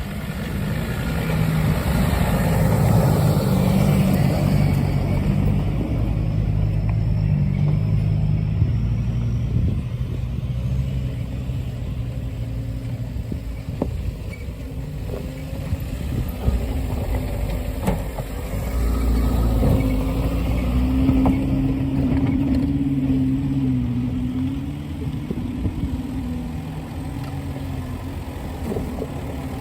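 Off-road 4x4's engine working at low speed over a rough track, its pitch rising and falling with the throttle, with a few light knocks.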